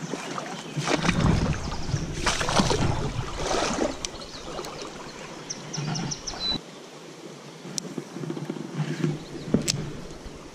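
Water splashing and sloshing in a shallow trout stream, in three surges in the first four seconds, then quieter with a few light clicks.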